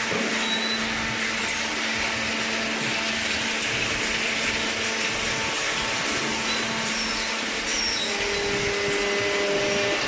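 Machinery of a cardboard baling line running steadily: a constant, noisy mechanical drone with a low hum under it, and a higher hum joining about eight seconds in.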